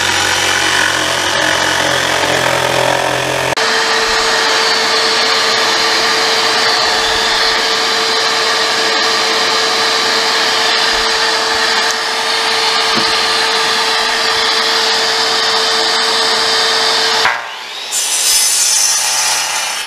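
Power saws cutting wood: a DeWalt 20V cordless jigsaw cutting plywood, its sound changing abruptly about three and a half seconds in to a steady whine with a rasping noise. Near the end a DeWalt miter saw cuts a board, with a brighter, higher-pitched noise.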